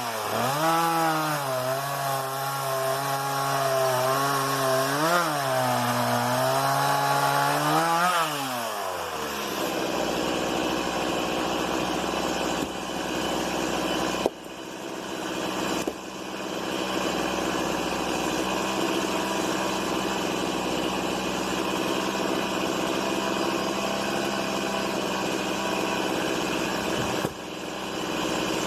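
Stihl MS 170 two-stroke chainsaw running at high revs, its pitch rising and dipping as it works, then about eight seconds in the throttle is released and it drops to a steady idle for the rest.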